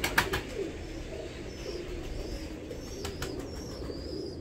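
Domestic pigeons cooing steadily in a loft, with a few sharp clicks just after the start and again about three seconds in. Faint high chirps come from about a second and a half in.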